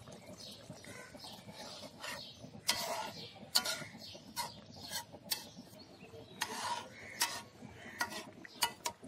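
Metal ladle stirring a thin fish and potato curry in a large metal karahi, knocking and scraping against the pan in a series of irregular clinks from about two and a half seconds in.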